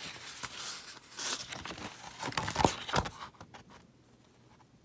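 Paper pages of a printed booklet being flipped through by hand, rustling and snapping for about three seconds, then settling with a few faint ticks as the booklet is laid open.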